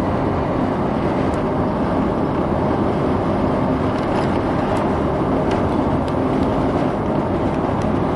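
Steady travel noise inside a moving vehicle: an even rumble with a faint steady hum underneath.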